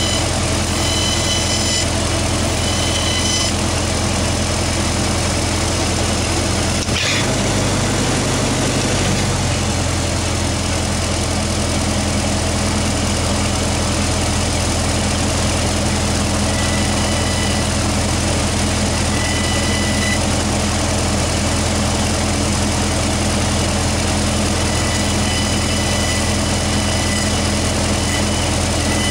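Lincoln SA-200 engine-driven welder running steadily while its exciter armature's commutator is polished with sandpaper on a stick. There is a single click about seven seconds in, and faint high whistles come and go.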